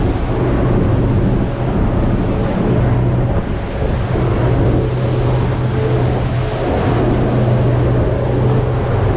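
Motorboat under way: the engine drones steadily beneath the rush of wind and water against the hull.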